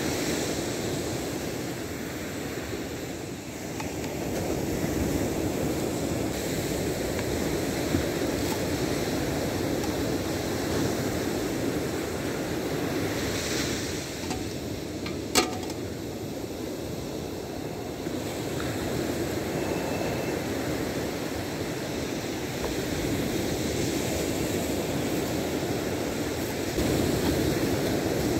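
Surf breaking on a sandy beach: a steady wash that swells and eases. A single sharp knock sounds about halfway through.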